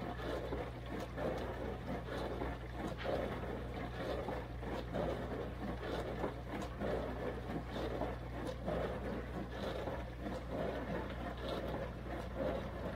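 IAGREEA compact countertop dishwasher running a wash cycle: a steady pump-motor hum under continuous, uneven splashing of water sprayed inside the tub.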